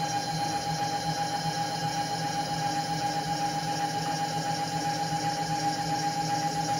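Milling machine table power feed motor running steadily with a constant whine, traversing the table.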